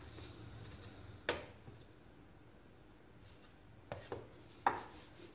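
Metal rolling pin rolling out paratha dough on a silicone mat: quiet rubbing and handling, broken by a few sharp knocks, one about a second in and three close together near the end.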